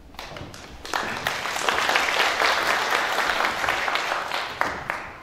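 Audience applauding. The clapping builds about a second in and dies away near the end.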